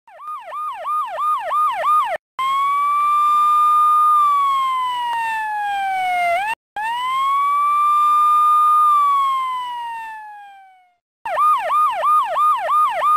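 Electronic siren of a Victoria Police Nissan 4WD. It starts in a fast yelp of about three sweeps a second, switches to a slow wail that rises and falls in long sweeps, cutting out briefly twice, winds down and fades about eleven seconds in, then returns to the fast yelp.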